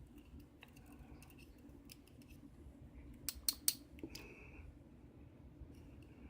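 Light metallic clicks of small lock pins and springs from a gutted lock cylinder being handled and set down, with three sharper clicks in quick succession about three and a half seconds in and a brief high ring just after.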